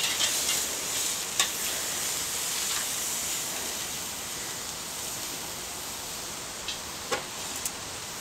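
Burgers and hot dogs sizzling on a charcoal grill, a steady hiss that fades somewhat about halfway through. A few sharp clicks of metal tongs against the grill grate.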